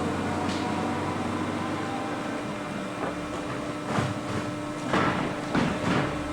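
CRAM-A-LOT HX-72-W baler and its 60-inch conveyor running, a steady machine hum with a constant tone, broken by a handful of sharp knocks and clatters in the second half.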